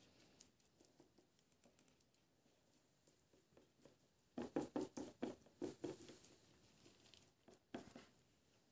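Faint taps and clicks of small hardwood blocks being handled and set down while gluing up an end-grain cutting board, with a quick run of them about halfway through.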